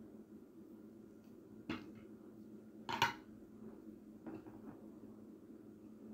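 Metal spoon and fork clinking against a ceramic plate while eating: a few sharp clinks, the loudest about three seconds in.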